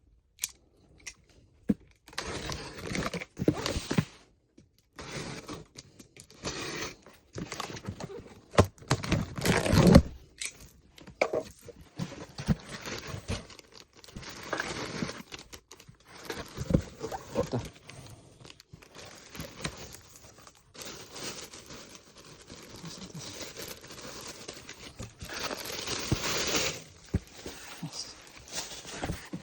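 Packaging being torn open and handled: irregular tearing, crinkling and scraping, with small clicks and knocks between, loudest about ten seconds in.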